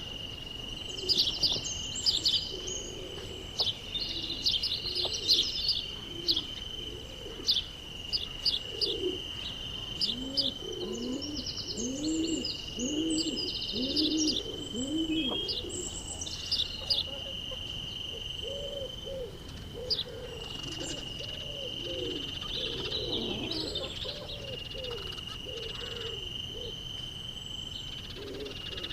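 Forest birdsong: small birds chirping over a steady high-pitched insect drone, with a dove's low cooing repeating in a long series from about a third of the way in.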